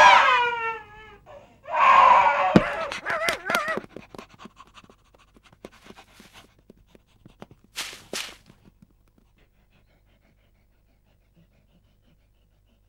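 Loud, drawn-out wailing and crying from several voices, a woman and a baby among them, breaks off about a second in. A second wavering wail follows, then only faint scattered clicks and rustles that die away to near silence.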